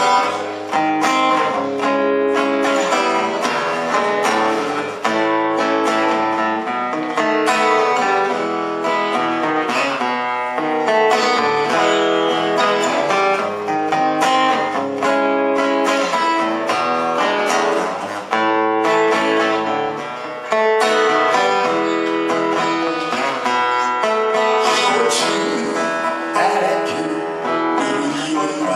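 Solo acoustic guitar playing a song's instrumental intro, chords ringing out with no voice.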